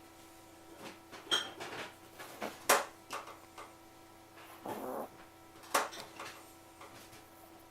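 Chihuahua snoring, in irregular short sounds of uneven strength, with one longer breath about five seconds in.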